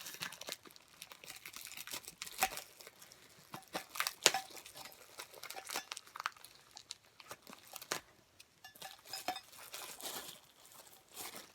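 Plastic packaging crinkling and rustling in irregular sharp crackles as a piece of merchandise is unwrapped from its bag.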